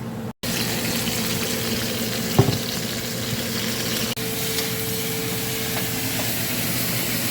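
Fajita filling sizzling steadily in a hot frying pan, with a single knock about two and a half seconds in.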